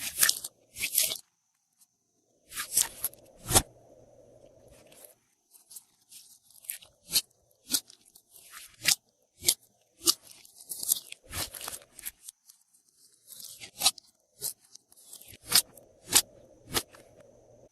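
Glossy slime being worked by hand as add-ins are mixed in, giving irregular sharp crackling pops and crunches.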